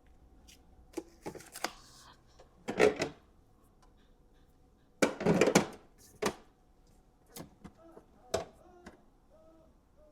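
Jars, bottles and food containers being handled and set down while a fridge is emptied: irregular knocks and clatters, the loudest and longest about five seconds in, with lighter clicks after.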